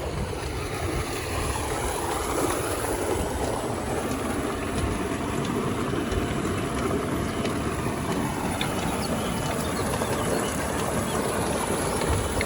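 A running tube well: a steady, noisy rumble of its pump and rushing water.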